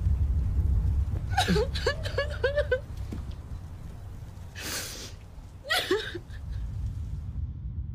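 A woman sobbing: a run of short, rising, choked cries, then a ragged gasping breath and one more cry, over a low steady rumble.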